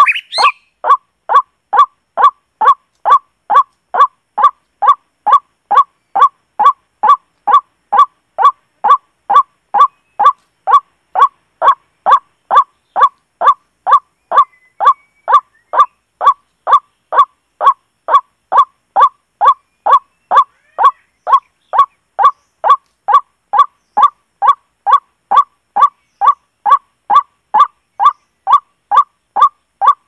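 White-breasted waterhen's monotonous call: one short honking note repeated very evenly, about twice a second.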